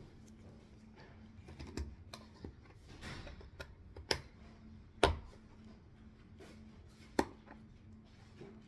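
Scattered sharp plastic clicks and light rustling as hands work the screw cap of an oat milk carton. The loudest click comes about five seconds in.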